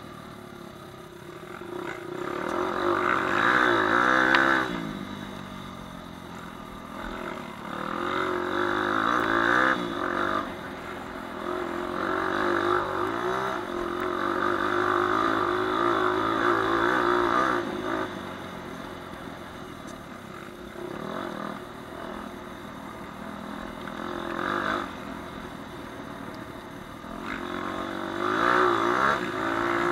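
Onboard sound of a four-stroke dirt bike engine riding off-road. The revs climb and fall again and again as the rider accelerates and backs off, loudest in surges a few seconds long.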